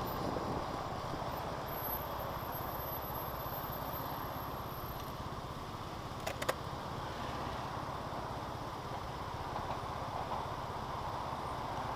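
SYM scooter engine running steadily at low revs while the scooter creeps forward in slow traffic, with a steady rush of surrounding traffic. Two short sharp clicks come close together about six and a half seconds in.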